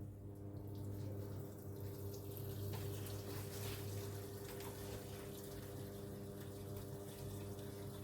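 Water running into a Toshiba fully automatic top-load washing machine as it fills, over a steady low hum.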